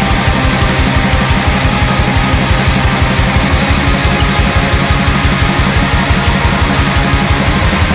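Heavy metal music: dense distorted electric guitars over fast, steady drumming.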